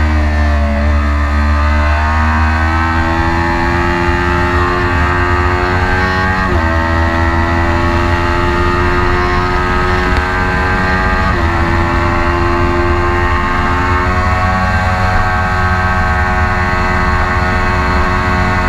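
Kawasaki Ninja 400's parallel-twin engine heard onboard while accelerating on track: the pitch dips briefly at the start, then climbs, with two upshifts about six and eleven seconds in, each a sudden drop in pitch. Heavy wind rumble on the microphone underneath.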